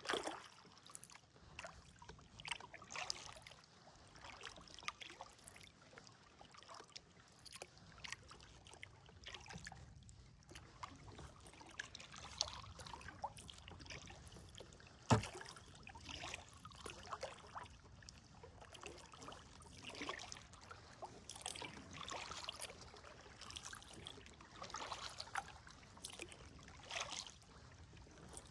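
Kayak paddle strokes: water splashing and dripping off the blades at an uneven rhythm, about every second or two, with one sharp knock about halfway through.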